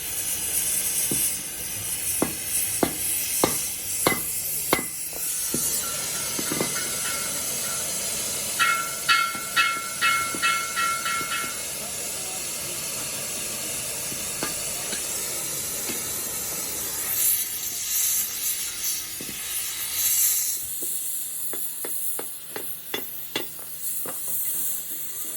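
Steady hiss with scattered sharp knocks and clicks. About a third of the way in there is a quick run of short electronic beeps lasting about three seconds.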